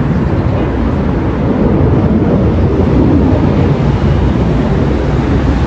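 Jet aircraft engine noise, a loud steady rumbling roar that grows a little louder after about a second and a half as the jet flies past.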